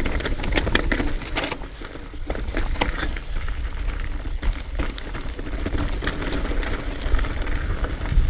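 Trek Remedy 9.7 mountain bike ridden downhill over rough trail: a dense, continuous clatter of tyre, chain and frame knocks and clicks over a steady low rumble.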